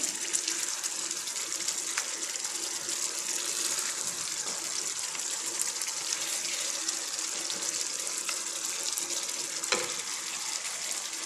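Wet spiced masala bubbling and sizzling steadily in a non-stick kadai, a continuous hiss, with a couple of light knocks of a wooden spatula against the pan as the boiled eggs are lifted out.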